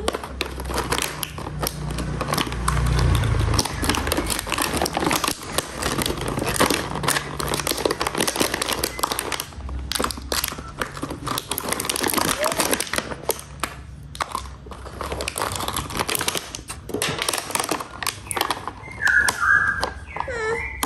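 Plastic toy packaging crinkling and rustling as it is handled and opened, with many small clicks and taps. Near the end come a few short, high chirps.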